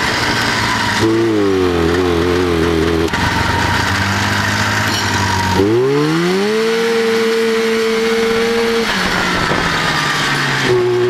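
1989 Arctic Cat Jag snowmobile's Suzuki 500 cc two-stroke engine running under throttle. Its pitch wavers unevenly early on, then rises as it revs up about halfway through, holds, and drops back near the end. It is skipping, a fault that shows only with the hand warmers switched on.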